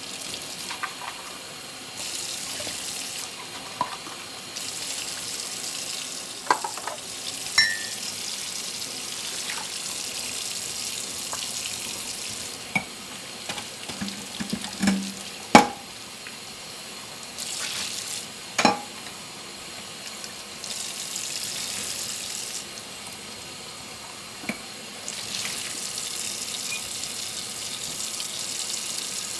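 Dishes being washed by hand at a kitchen sink: the tap runs in stretches of a few seconds at a time, with occasional sharp clinks of dishes, one ringing briefly and the loudest about halfway through.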